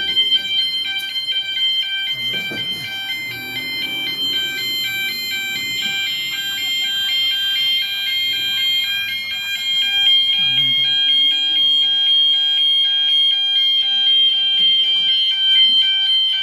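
Gent fire alarm sounders going off in alarm: several high electronic tones pulse in a fast, even rhythm. A steady high-pitched tone joins in about six seconds in.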